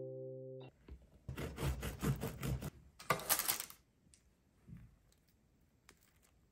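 Crusty baked raisin and walnut loaf being torn open by hand: the crust crackles in two spells, the second louder, then a few faint crumb ticks and a soft knock.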